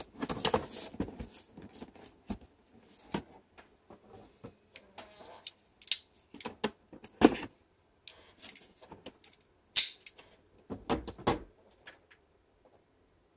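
A toy box being opened by hand: irregular rustling and scraping of packaging, with sharp clicks and snaps, that stop about twelve seconds in.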